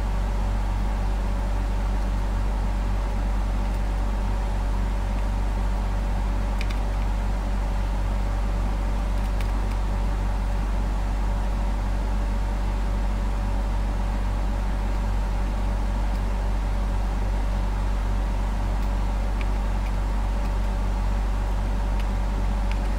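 A steady low hum, with a few faint ticks.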